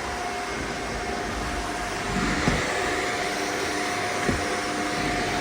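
Shark upright vacuum cleaner running steadily while being pushed over the floor, its motor giving a constant whine over the airflow hiss. Two light knocks sound about two and a half and four seconds in.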